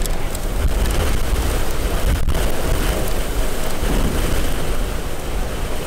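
Strong, gusty thunderstorm outflow wind rumbling and buffeting against the microphone, with one sharp click about two seconds in.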